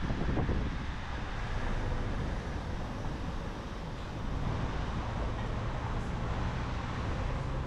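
City street noise: a steady wash of traffic with wind rumbling on the microphone.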